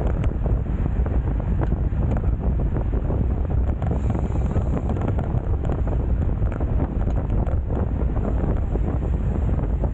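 Steady wind buffeting the microphone of an action camera on a road bike being ridden, a dense low rumble with no let-up.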